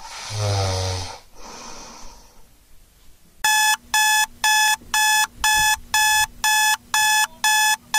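An electronic alarm clock beeps, short pitched beeps about two a second, starting about three and a half seconds in. A short low sound comes in the first second.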